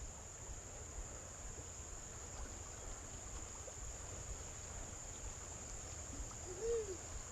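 Steady, high-pitched chorus of insects such as crickets, over a low rumble, with one brief rising-and-falling tone near the end.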